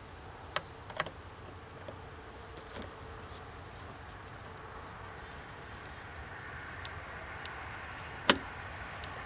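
Scattered small clicks and taps from handling door-panel screws and a screwdriver, with one sharper click about eight seconds in, over a steady faint background hum.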